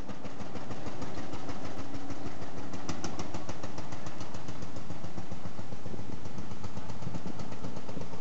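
Lanz Bulldog-type single-cylinder hot-bulb tractor engine running with an even, rapid beat as it pulls a loaded trailer past, fading in over the first second.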